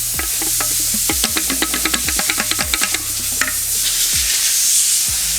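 Loud steady hiss with a run of rapid clicks, about ten a second, in the middle, over background music with a low bass line.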